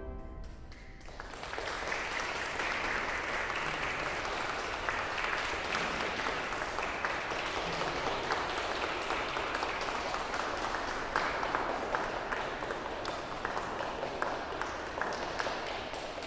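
The last chord of the pipe organ dies away, then a small audience applauds steadily, the clapping fading out near the end.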